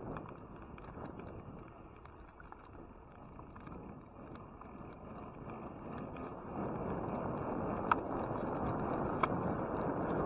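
Ride noise from a bike-mounted camera: bicycle tyres rolling on asphalt with wind on the microphone and light rattling clicks from the bike. The noise grows louder about two-thirds of the way through.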